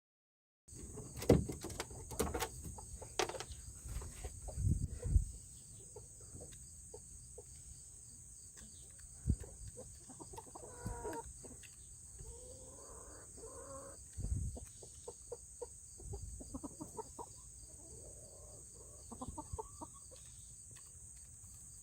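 Chickens clucking softly as they feed from a hand, with a few low calls near the middle and scattered sharp clicks of pecking.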